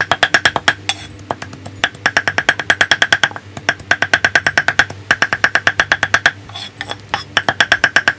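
Kitchen knife mincing ginger on a thick wooden chopping block: rapid, even chops that knock on the wood, in runs of one to two seconds with short breaks.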